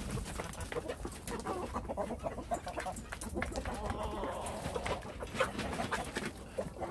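Hens and roosters clucking softly while they feed, over many quick, irregular clicks of beaks pecking at pellets in metal feed pans.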